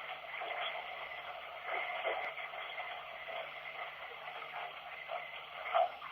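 Running-water recording used as an EVP noise source: a continuous, muffled hiss with brief garbled fragments through it, over a faint steady hum.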